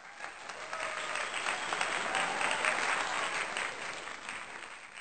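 Applause, a dense patter of many claps, swelling over the first second and fading away near the end.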